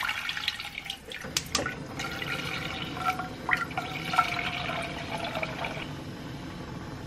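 Water poured from a jug into a pot of seared beef cubes, splashing and gurgling as the pot fills to make a stew broth, easing off near the end. A few sharp clicks come about a second and a half in.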